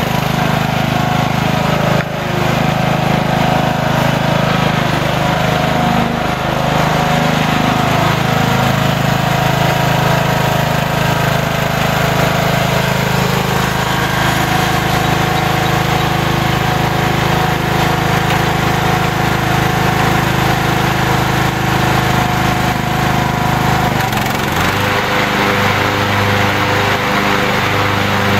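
Briggs & Stratton engine of a Poulan Pro 16.5 HP riding lawn mower running steadily as the mower drives. The engine's tone shifts near the end.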